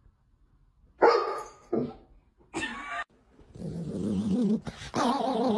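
A golden retriever barks three times, short and loud. Then a small chihuahua-type dog makes a long warbling growl whose pitch wobbles rapidly up and down, like a broken radio.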